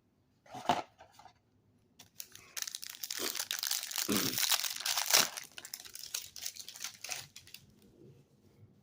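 Plastic trading-card pack wrapper being torn open and crinkled by hand: dense crackling that starts about two and a half seconds in and lasts about five seconds, after a brief rustle near the start.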